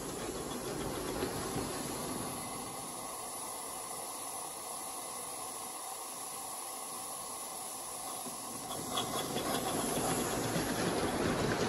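Radio-controlled Roundhouse live-steam model locomotive hissing steam as it runs, a steady hiss that grows louder about nine seconds in.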